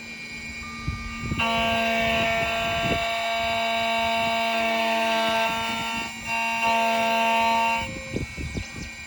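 Key-cutting machine running with a steady, high whine. It cuts out briefly about six seconds in, runs again for over a second, then stops. A constant low hum sits underneath.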